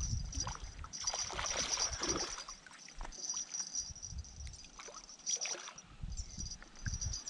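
A hooked fish thrashing and splashing at the water's surface, in bursts around a second in and again about five seconds in.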